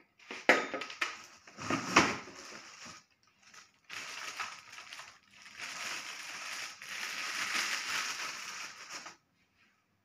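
Two sharp knocks about a second and a half apart, then clear plastic packaging crinkling and rustling for about five seconds as a vacuum cleaner's floor nozzle is unwrapped from its bag, stopping abruptly.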